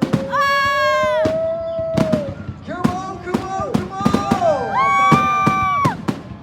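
Fireworks going off: a run of sharp cracks and pops, with several high whistling tones that each hold for about a second and then drop away.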